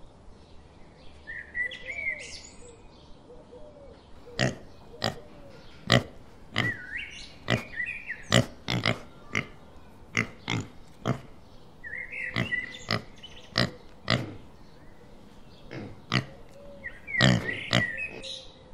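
Birds chirping, then from about four seconds in a long, irregular run of short, sharp squeals and grunts from wild boar piglets, some of them loud, with birds still chirping behind.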